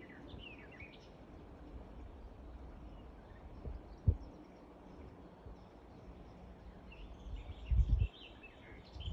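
Outdoor ambience with faint bird chirps in the first second and again near the end. Two low thumps come about four and eight seconds in.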